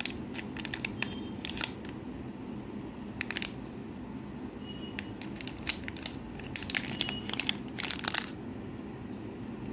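Cadbury 5 Star 3D bar being broken apart by hand, its crisp wafer shell cracking and crunching in a run of sharp crackles, thickest around three seconds in and again from about six to eight seconds, then stopping. A steady low hum lies underneath.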